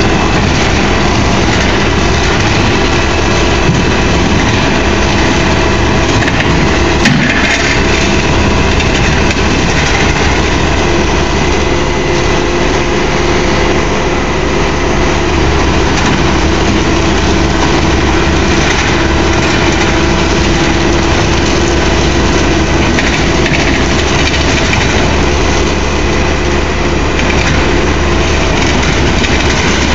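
Backhoe loader's diesel engine running steadily and loud, working the backhoe arm with its bucket planted on the ground to shift the railroad car it sits on. A single sharp knock about seven seconds in.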